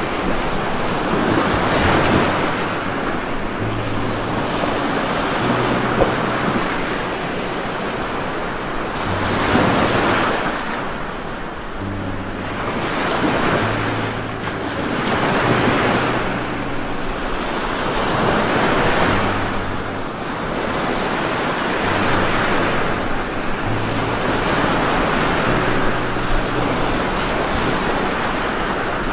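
Rain with wind: a steady rushing hiss that swells and fades every few seconds, with a low hum that comes and goes underneath.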